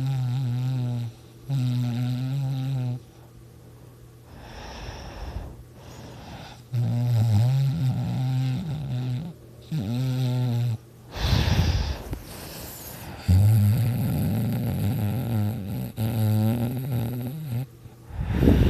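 A person snoring: a run of droning, low-pitched snores, each a second or two long, with softer breathing between them, and two harsher, noisier snores, one about two-thirds of the way in and one near the end.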